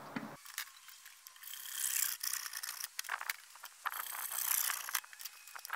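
Small hacksaw cutting through PVC pipe: the blade rasps back and forth in a few runs of strokes with short pauses between them.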